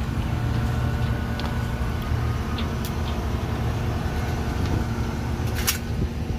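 A machine engine running steadily with a low rumble and a steady hum. A few faint ticks, and one sharp crack near the end.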